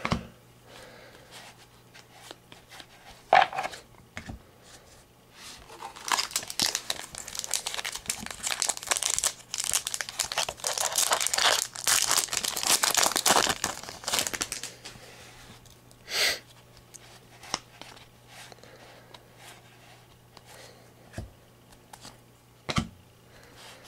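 A trading card pack wrapper being torn open and crinkled, a dense crackling for several seconds in the middle, with a few sharp snaps of cards being handled before and after.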